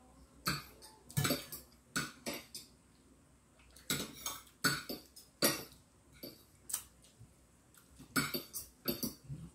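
Eating by hand: irregular light clicks and taps of fingers and food against a ceramic plate, some single and some in quick bunches.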